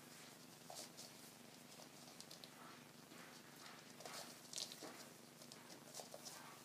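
Faint scrabbling and patter of two young Coton de Tulear puppies' paws and claws on a padded mat as they wrestle, with short scratchy scuffles, the loudest a little past four seconds in.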